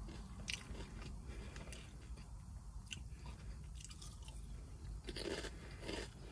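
Miss Vickie's kettle-cooked potato chips crunching as they are bitten and chewed, close to the mouth. There are a few sharp, separate crunches at first, then denser chewing from about five seconds in.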